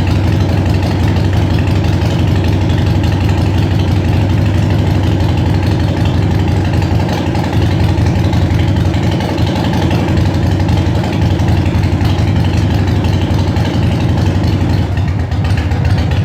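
Freshly rebuilt engine idling steadily on its first run after the rebuild, a deep even note with no revving.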